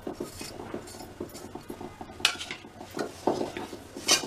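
Metal spatula and hands scraping and rubbing against a metal kadhai while powdered sugar is mixed into a stiff cocoa-mawa dough: quick rubbing strokes at first, then a few sharper scrapes in the second half.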